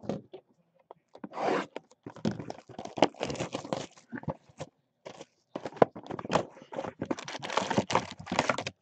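Plastic shrink-wrap being torn off a trading-card box and crumpled in the hand: irregular crinkling and tearing crackles with short gaps between them.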